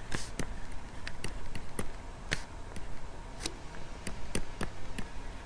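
Stylus tapping and scratching on a tablet screen during handwriting: irregular sharp clicks, about two or three a second, over a faint steady low hum.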